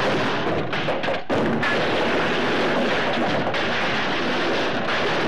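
Cartoon crash-landing sound effect: a long, loud, continuous crashing and clattering of smashing wooden fence boards, with a brief dip about a second in.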